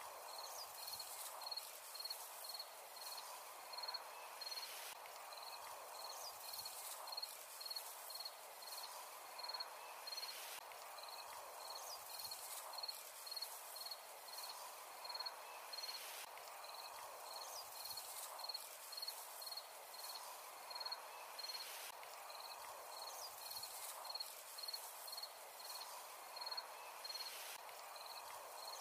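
Cricket chirping: short, high chirps repeating at an even pace, over a soft, steady field ambience.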